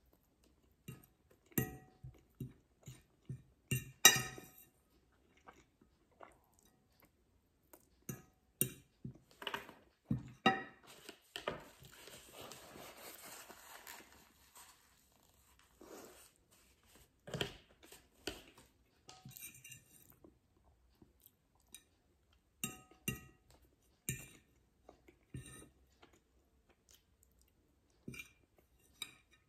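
Close-up eating sounds of a person chewing spaghetti, with a fork clinking and scraping on a ceramic plate in short, scattered knocks. About halfway through comes a few seconds of soft rustling as a napkin wipes the mouth.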